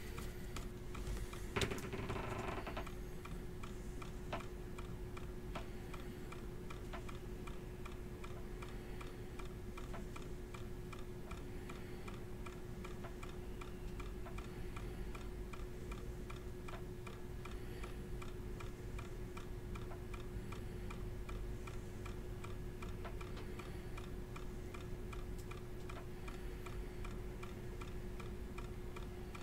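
Faint steady hum with a regular light ticking throughout, and a short rustle about two seconds in.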